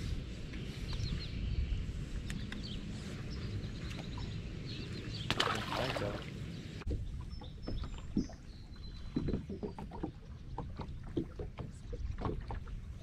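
Outdoor ambience on a bass boat on the water: a steady low rumble of wind and water, with a short rushing splash about halfway through and scattered light knocks and taps in the later part.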